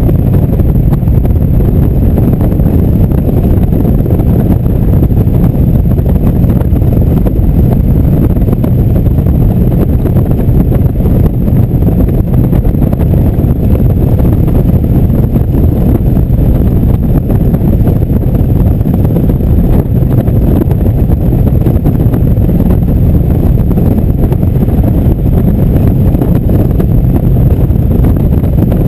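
Indian motorcycle running steadily at cruising speed, its engine mixed with heavy wind rushing over the camera microphone.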